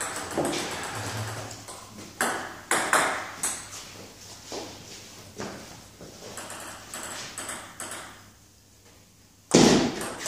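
Celluloid-type table tennis ball clicking off rubber paddles and bouncing on the table during play: sharp ticks at irregular intervals, with a much louder sharp knock near the end.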